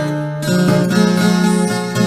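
Instrumental viola caipira music, the Brazilian ten-string folk guitar, with notes plucked and strummed in a running melody over a bass line.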